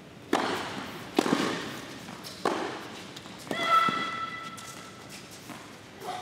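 Tennis ball struck by rackets in a serve and rally: sharp hits roughly a second apart, each with a short ring after it, and a brief high squeak about three and a half seconds in.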